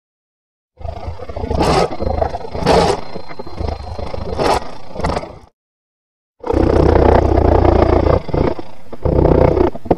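Hammer and chisel scraping and chipping hardened spray sealer off a classic Mini's sheet-steel boot floor: a continuous rough scraping clatter with a few sharper knocks. It comes in two bursts that start and stop abruptly, with dead silence between them.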